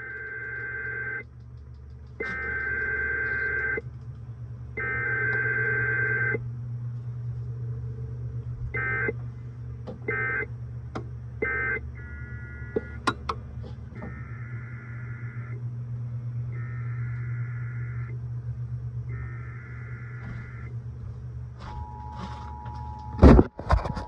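Emergency Alert System data bursts: three long warbling header bursts, then three short end-of-message bursts, then three more long header bursts. Near the end the steady two-tone EAS attention signal begins. A low steady hum runs underneath, and a couple of loud knocks come just before the end.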